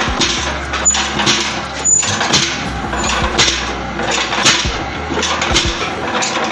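Belt-driven soap punch press running with a steady low hum, under irregular metal clatter and knocks as the steel scoop and soap bars are handled on its steel table.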